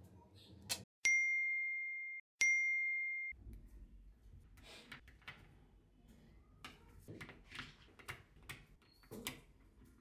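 Two clear ding tones about a second and a half apart, each ringing for about a second and fading. After that come small scattered clicks of tiny neodymium magnetic balls snapping together as they are built up by hand.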